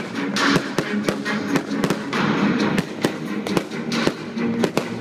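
Fireworks display: aerial shells bursting in a quick run of sharp bangs, several a second, over music.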